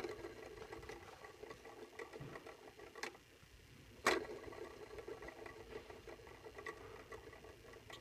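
Small motor driving the blades of a toy model ceiling fan, running steadily with a light ticking rattle. Sharp clicks come at the start, about three seconds in and, loudest, about four seconds in.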